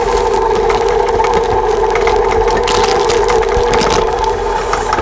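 Electric stand mixer running steadily with its paddle beater, mixing chocolate chips into thick cookie dough in a steel bowl: a steady motor hum with scattered light clicks.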